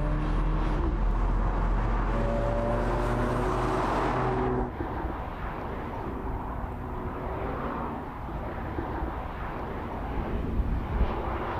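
Audi S3 Cabriolet's turbocharged 2.0-litre four-cylinder engine pulling under acceleration, its note rising. About four and a half seconds in the sound cuts abruptly to fainter, distant engine and road noise.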